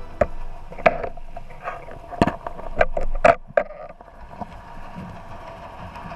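A series of sharp knocks and clicks heard underwater, about seven of them bunched in the first four seconds, then a quieter steady wash.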